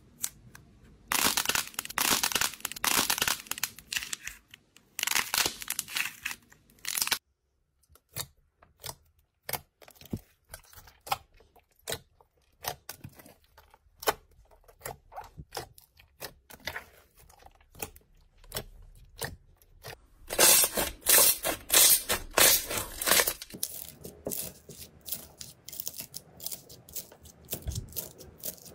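Hands working slime close to the microphone: sticky squishing and stretching with sharp pops and clicks, turning to a rapid crackle near the end as foam-bead slime (floam) is pressed.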